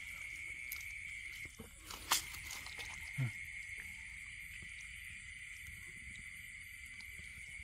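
Night insects trilling in one steady high tone that breaks off briefly about one and a half seconds in, with a sharp click just after two seconds and a short low thump a second later.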